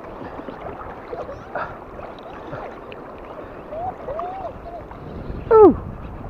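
Steady wind and shallow sea water washing around a wader, with a few faint wavering calls in the background. About five and a half seconds in comes one short, loud cry that falls steeply in pitch.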